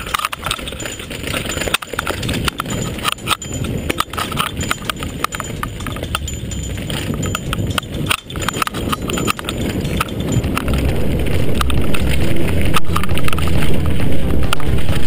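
Mountain bike riding fast over a rough forest trail: irregular clicks, knocks and rattles from the bike over roots and stones, with a low rumble that grows louder over the second half as the speed picks up.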